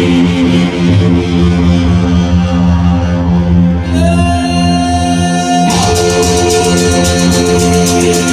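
Live electronic music played loud through a club PA: sustained chords over a steady low pulse. About four seconds in a new held note comes in, and a little later a fast, even high ticking rhythm joins.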